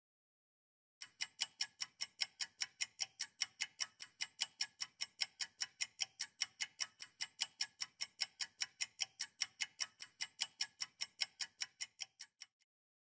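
Clock-ticking sound effect for a quiz countdown timer: sharp, evenly spaced ticks at about four a second, starting about a second in and stopping shortly before the end.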